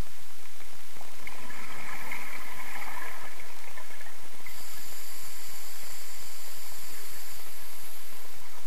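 Scuba diver breathing through a regulator underwater: a stretch of bubbling exhaust, then a steady hiss with a thin high whistle as the next breath is drawn.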